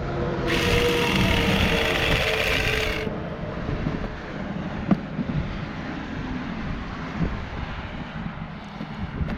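Small chainsaw cutting into a pumpkin: a loud, hissing cut from about half a second in to about three seconds, with the motor's pitch sagging slightly under load. The saw then carries on running more quietly.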